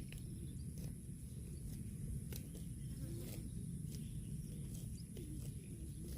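Cattle grazing and stepping: scattered crunches and knocks of bites and hooves over a steady low rumble, with a faint steady high whine.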